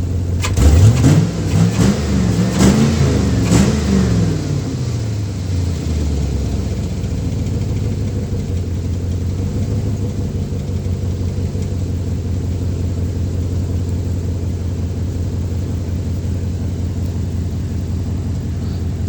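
LS-swapped V8 in a 1965 Chevy C10 blipped through about three quick revs, then settling to a steady idle.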